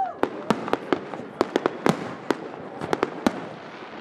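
Aerial fireworks bursting overhead in an irregular string of sharp bangs, about a dozen, some in quick clusters. The loudest comes a little before two seconds in.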